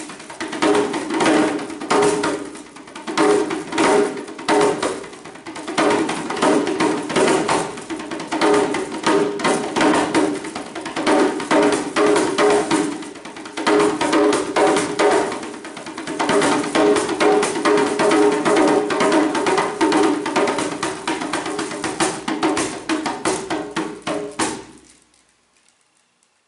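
Solo djembe played with bare hands: fast, dense strings of strokes over the drum's ringing pitch, with a few brief dips in loudness. The playing stops near the end.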